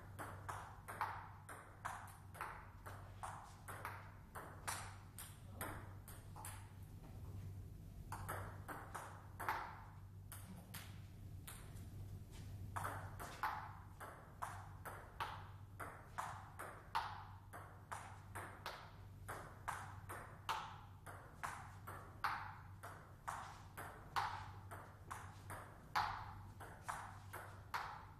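Table tennis ball clicking off the bats and table in back-and-forth rallies, about two hits a second, with a short lull between points about ten seconds in. A steady low hum runs underneath.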